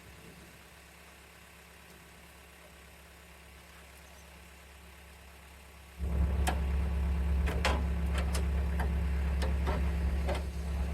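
Garden tractor engine running steadily, coming in abruptly about six seconds in, with several sharp metallic clinks over it and easing off near the end.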